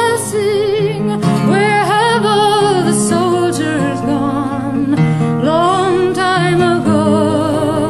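Background music: a solo voice singing a slow melody with heavy vibrato and sliding notes over guitar accompaniment and sustained low notes.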